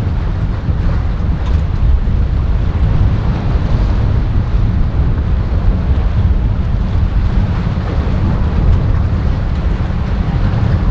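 Strong wind buffeting the microphone in a steady low rumble, over the rush of waves and boat engine noise.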